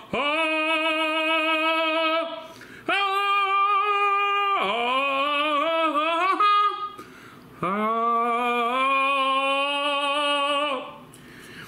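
A man singing long, held, wordless notes in three drawn-out phrases with short breaks between them; the pitch is fairly high and wavers.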